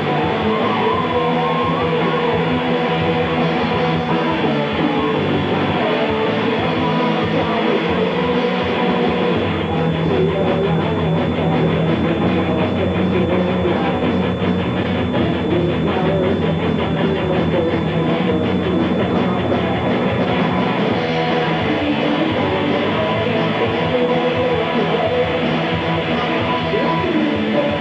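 Rock band playing live: amplified guitar over a drum kit, loud and continuous.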